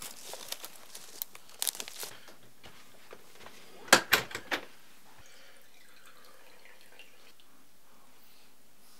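Footsteps crackling on the dry forest floor of twigs and leaves for about two seconds. About four seconds in comes a short clatter of four or five sharp knocks, then only quiet room tone.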